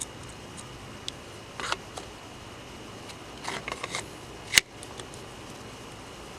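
Hands handling the parts of a welding electrode holder and lead: a few short clicks and rustles, then one sharp, loud click about four and a half seconds in, over a faint steady high tone.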